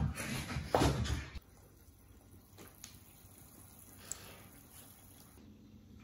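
Karaage pieces deep-frying in a pot of oil: a faint, steady sizzle and bubbling. It follows a short louder burst of noise in the first second or so.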